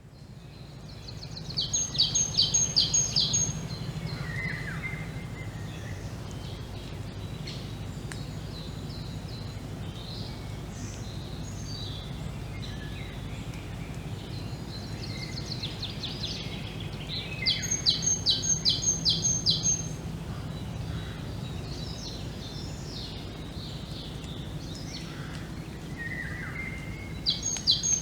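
Forest birdsong from several birds calling over one another. One bird repeats a short, rapid phrase of about six high notes three times, the loudest sound. A steady low hum runs beneath.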